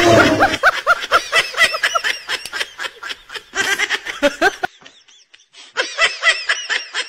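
Laughter in quick, repeated ha-ha bursts. It drops away for about a second past the middle, then starts again.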